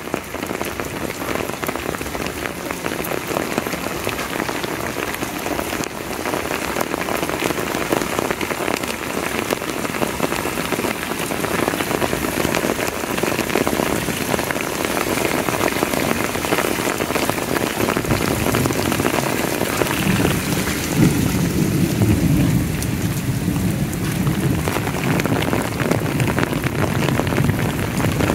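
Heavy rain falling steadily on pavement and wet ground, a dense even hiss that turns deeper and fuller about two-thirds of the way through.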